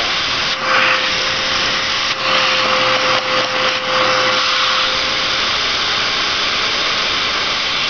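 High-power vacuum running steadily with a faint whine, drawing loosened carbon out of a blower engine's exhaust port. The rush of air changes several times in the first half as the nozzle is moved around the port.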